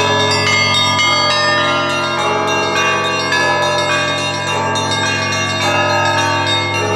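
Russian Orthodox monastery belfry ringing a trezvon, several bells rung together. Small bells are struck in quick succession over the steady deep hum of a large bell, and the strikes come less often after about two seconds in.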